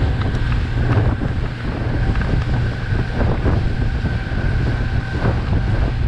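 Motorboat engine running steadily under way, a constant low drone, with wind buffeting the microphone.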